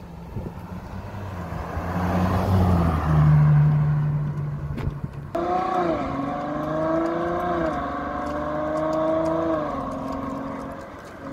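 Ferrari engine running as the car pulls out and passes close by, loudest about three seconds in. About five seconds in the engine note climbs under hard acceleration and drops in steps at the upshifts, settling lower near the end as the car moves away.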